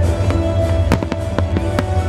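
Music with a heavy steady bass, with several sharp firework bangs cutting through it, the loudest about a second in.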